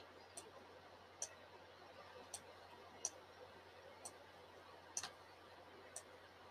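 Near silence with faint, sharp clicks about once a second, unevenly spaced.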